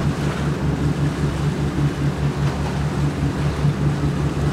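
A boat's motor running at a steady speed, a constant low hum with a fast pulse, over wind and water noise.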